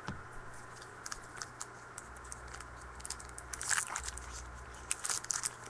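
Faint, scattered light clicks and crisp rustles of trading cards and pack wrapper being handled and sorted, busiest about two-thirds of the way in and again near the end.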